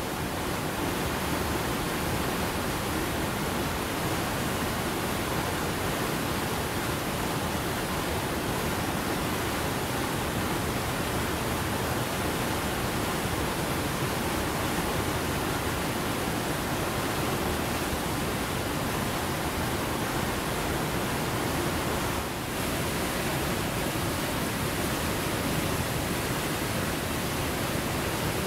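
Fast-flowing creek water rushing over rocks: a steady wash of noise that dips briefly about three-quarters of the way through.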